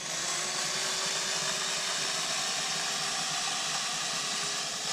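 Worx 8-amp electric pole chainsaw running and cutting into a branch: a steady hiss of chain and wood with a faint motor whine, starting abruptly.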